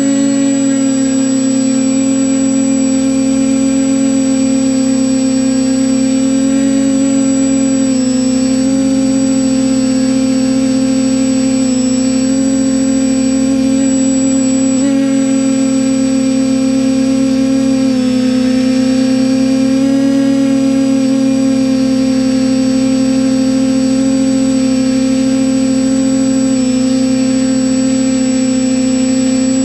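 TBS Discovery Pro quadcopter's brushless motors and propellers running with a loud, steady hum, its pitch dipping slightly every few seconds as the throttle shifts, heard from the onboard camera. A constant thin high whine sits above it.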